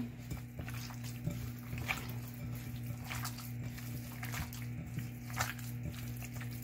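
Hands squishing and kneading raw boneless chicken in a wet, floury marinade in a glass bowl: soft, irregular squelches over a steady low hum.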